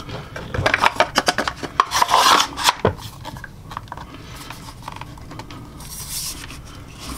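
Pointer Field Tek 4 semi-automatic 12-gauge shotgun handled during reassembly as the fore-end is seated. A quick run of clicks, knocks and scrapes of synthetic and metal parts fills the first three seconds, and a brief rub comes about six seconds in.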